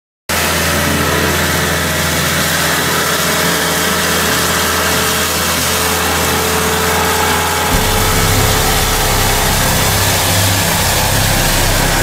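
Machine-mounted hydraulic hedge-cutter head running as it trims a hedge: a steady engine hum under a dense whirring hiss from the cutting head, starting abruptly. The low engine note changes about eight seconds in.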